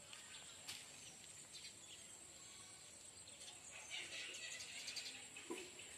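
Faint outdoor ambience: a steady high-pitched insect drone with a few scattered bird chirps and clicks, busiest about four to five seconds in.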